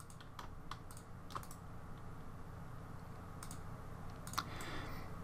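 About seven sharp, scattered computer mouse clicks over a faint, steady low hum.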